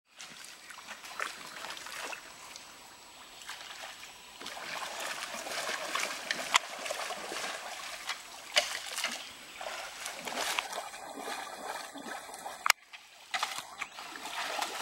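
Squelching and splashing in mud and puddle water, short irregular splashes; near the end a hand swishes something about in a puddle.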